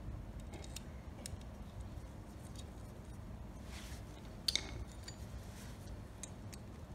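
Small clicks and light metallic taps as the parts of a small-engine carburetor are handled and fitted together, with one sharper click about four and a half seconds in.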